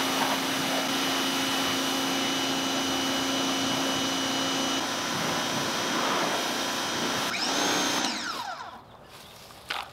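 Pressure washer spraying water onto a small electric trials motorbike: a steady spray hiss with motor noise, which dies away about eight seconds in.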